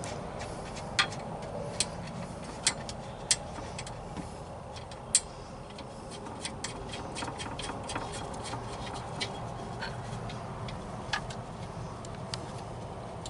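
Irregular sharp clicks and ticks from bolts being threaded by hand into a van swivel-seat base, with a few louder clicks in the first five seconds and a run of quicker small ticks in the middle.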